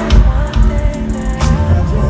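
Live band music from a concert stage, with drum kit, guitars and bass under a gliding lead melody, heard from out in the audience.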